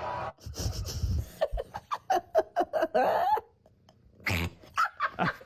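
A cat making a fast run of short, laugh-like calls. They stop for about a second, then a few more come near the end.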